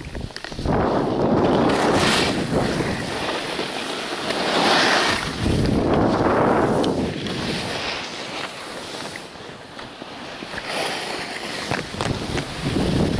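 Wind rushing over the microphone and skis hissing and scraping on packed piste snow during a downhill run, swelling and easing with each turn. It eases for a few seconds in the second half, then picks up again near the end.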